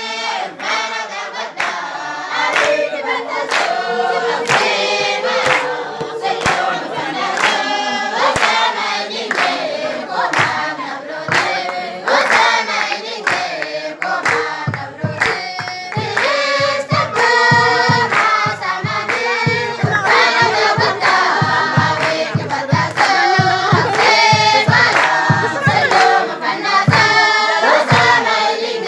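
Mixed choir of women and men singing together in unison. About halfway through, a steady beat of sharp strokes about twice a second joins the singing.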